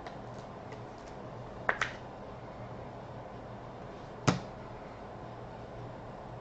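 Trading cards and plastic card holders handled on a desk: a quick double click a little under two seconds in and one sharper tap just past four seconds, with a few faint ticks early on, over a low steady hum.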